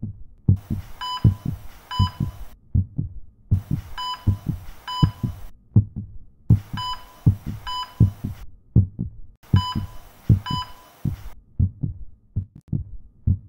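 A sound-effect heartbeat thumps low and fast, about three or four beats a second. Every three seconds a two-second burst of static cuts in, each burst carrying two short electronic beeps.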